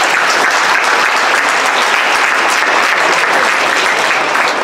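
Audience applauding, many hands clapping in a dense, steady stream.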